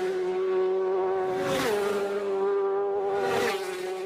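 Toy MotoGP motorcycle's electronic engine sound, a buzzing revving note that swells and drops slightly in pitch about every second and a half.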